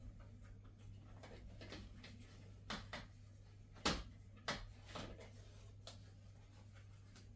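Faint clicks and knocks from handling a metal curtain rod and its grommet rings while hanging a curtain, a few scattered taps with the loudest about four seconds in, over a steady low hum.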